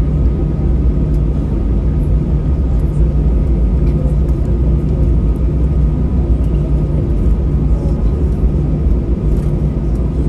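Airbus A321-211's CFM56-5B turbofan engines at taxi power, heard inside the cabin: a steady low rumble with a faint, even whine above it.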